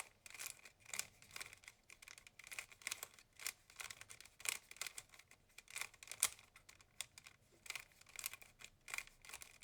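A Rubik's cube's plastic layers being twisted by hand: quick clicks and rattles, a few each second in irregular runs, as a short move sequence is repeated to bring a first-layer corner into place.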